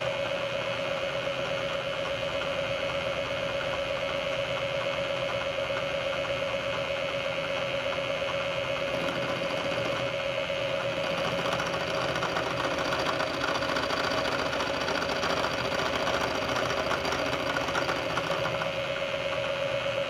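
Bridgeport milling machine running a face mill at about 800 RPM: a steady machine hum with one constant mid-pitched tone. From about halfway a higher hiss joins as the cutter takes a light facing pass on a cast bronze handle stem.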